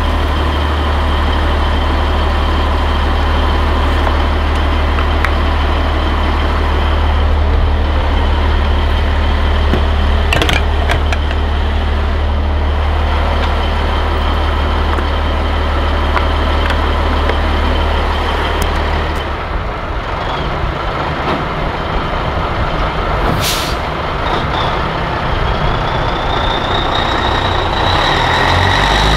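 Heavy diesel truck engine idling with a steady low rumble, which becomes less steady about two-thirds of the way through. A click comes about a third of the way in, and a brief sharp air hiss about three-quarters through.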